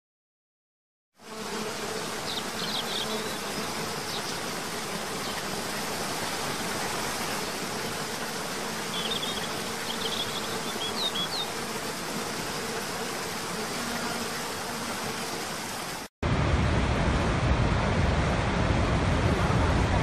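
Steady rush of a waterfall with a buzzing insect drone and a few short, high rising chirps. About 16 seconds in it cuts abruptly to a louder, deeper rushing roar of a large waterfall.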